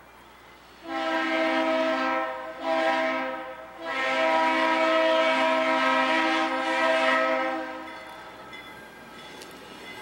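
Multi-chime air horn of an approaching Norfolk Southern diesel locomotive sounding three blasts: long, short, then a long one of about four seconds.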